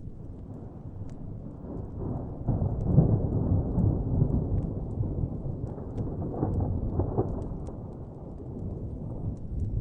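Distant thunder rumbling, swelling about two and a half seconds in and rolling on in waves before easing off near the end, with small, sparse crackles of a wood fire.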